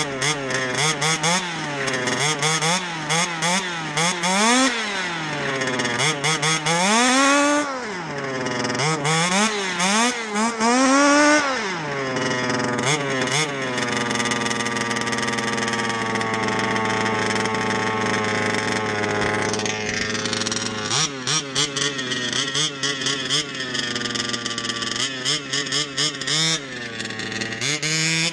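HPI Baja 5B 1/5-scale RC buggy's two-stroke petrol engine revved again and again in throttle blips, its pitch rising and falling each time. A steadier stretch of running comes in the middle, then more quick, uneven revving near the end.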